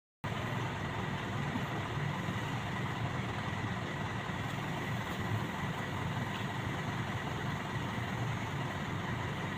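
SANY SY75C Pro mini excavator's diesel engine running steadily, with a faint steady whine over it; the sound cuts in abruptly just after the start.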